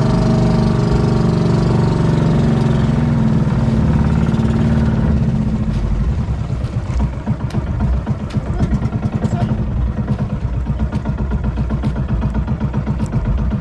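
Outrigger boat's engine running as the boat moves across the water. Its note is steady at first, then turns to a quick, uneven pulsing about five seconds in.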